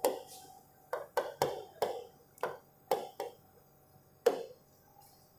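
Fingertips tapping on the glass of a large interactive touchscreen board while typing on its on-screen keyboard: about ten short, sharp taps at an irregular typing pace, the loudest one about four seconds in.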